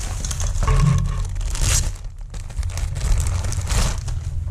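Clear plastic bag crinkling in several irregular bursts as a glove is handled and pulled out of it, over a steady low hum.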